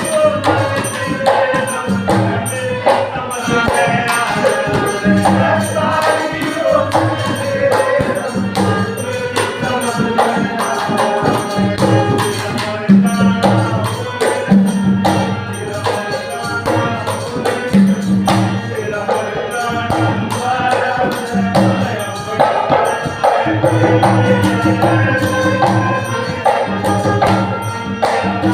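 Hindu devotional bhajan music with a melody line over a repeating bass pattern and steady hand percussion.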